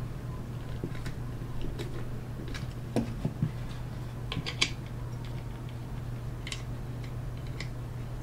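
Scattered clicks and taps as a plastic clamp and its quarter-inch bolt are handled and tightened with a nut driver, at irregular times, with the sharpest knocks about three and four and a half seconds in. A steady low hum runs underneath.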